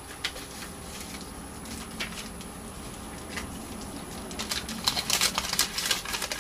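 Chocolate bar wrapper and foil being unwrapped by hand, crinkling. Only a few faint rustles at first, then busy crinkling from about four seconds in as the foil is opened.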